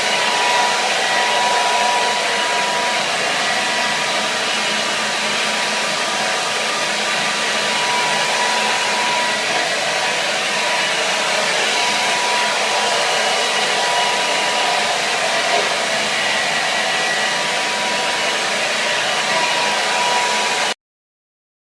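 Hair dryer running steadily: an even rush of blown air with a faint whine from the motor. It cuts off abruptly near the end.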